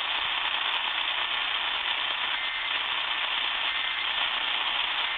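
AM radio receiver hissing and crackling with static, a steady even noise with no station audible.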